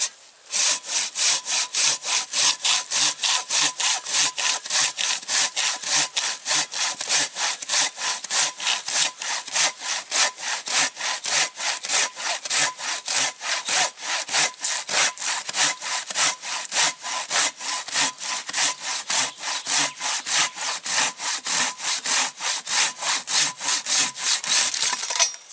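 Silky Katanaboy 500 folding handsaw cutting through a large pine log with fast, even strokes, about three or four a second. The sawing stops just before the end.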